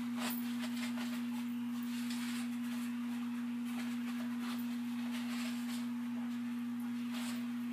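A steady, single-pitched electrical hum, with faint crinkles of paper towels every second or so as raw catfish fillets are patted dry.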